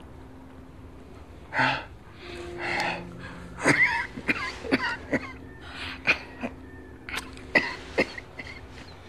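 A woman crying in short, irregular sobs with sharp catching breaths, the bursts coming thicker from about halfway through.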